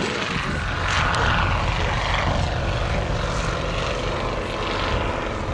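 Propeller aircraft engine running as the aircraft flies by, a steady buzzing drone that swells to its loudest about a second in.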